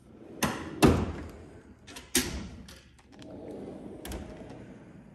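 Steel drawers of a Snap-on roller toolbox being pushed shut and another slid open, with sharp metal knocks as a drawer shuts about a second in and again a second later, then the rolling rumble of a drawer sliding out.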